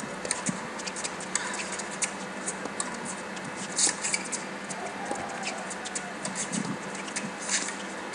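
Tennis rally on a hard court: sharp pops of racket strikes and ball bounces, the loudest hit about four seconds in and another near the end, with a brief shoe squeak in between.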